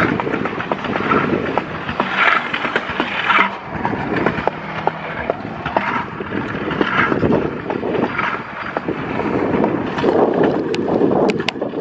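Small hard wheels rolling over a concrete sidewalk: a steady rumble that swells and eases, with scattered sharp clicks, several of them close together near the end.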